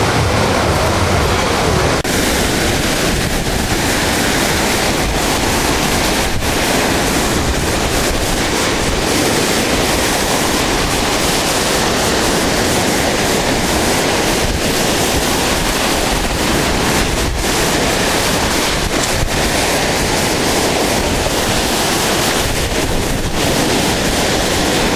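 Loud, steady rush of floodwater, with wind buffeting the microphone; the sound shifts slightly about two seconds in.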